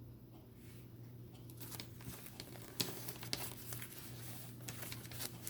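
A deck of reading cards being shuffled and handled: soft, irregular crackling and clicking of card stock, thickening after the first second or so.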